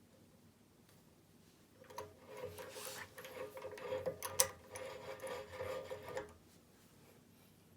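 Small electric drill motor running for about four and a half seconds, starting about two seconds in, with scraping and crackling as the bit cuts into an aluminium rod; one sharp click near the middle.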